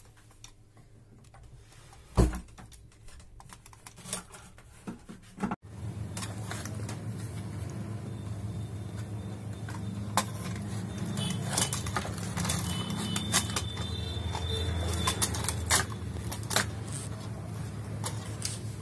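Scattered small clicks and scrapes of a screwdriver and pliers working on switch terminals and wires in an opened switchboard, as the mains phase wire is unscrewed and pulled off the switches. About five and a half seconds in, a steady low hum comes in under the clicking.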